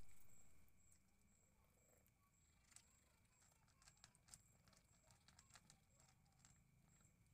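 Faint, irregular crunching clicks of a calico cat chewing dry kibble and fried milkfish from a plastic bowl. A louder noise fades out over the first second.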